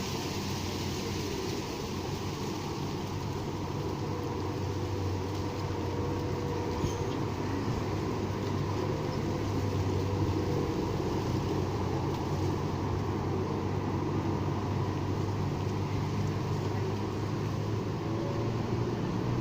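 Steady hum of road traffic with a low engine drone.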